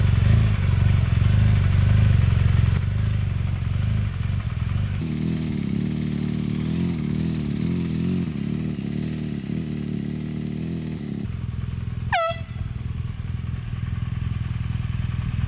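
Large adventure motorcycle engine running at low speed as the bike rolls slowly, its pitch wavering with the throttle. About twelve seconds in, a short high tone sweeps sharply down in pitch.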